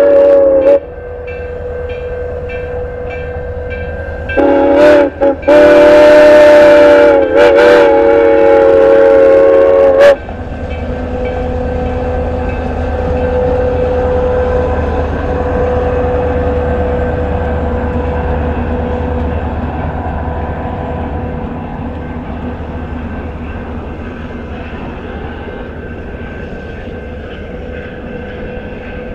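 Grand Canyon Railway 4960's steam whistle blowing: a blast cutting off just after the start, then two short blasts and one long blast of about four and a half seconds, its pitch wavering. After that the train runs on with a steady rumble.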